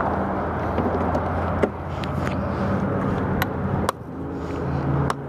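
Sharp hard-plastic clicks and knocks, four or so, as the air filter is worked into an ATV's plastic airbox, over a vehicle engine running steadily.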